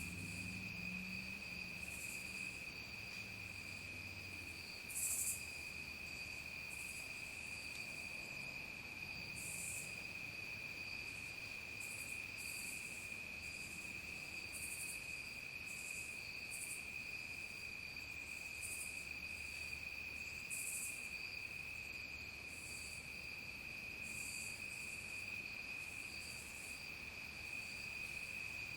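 Evening chorus of crickets: one steady, unbroken high trill, with short, even higher insect buzzes every second or two, a few of them louder.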